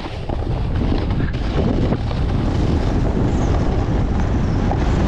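Wind rushing over an action camera's microphone while a snowboard slides and scrapes over groomed snow at speed. The noise steps up in level about a second in and again around two seconds in.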